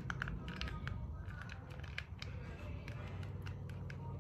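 Faint, scattered small plastic clicks of a long-nosed utility lighter being fiddled with in the hands, not yet lit, over a low steady hum.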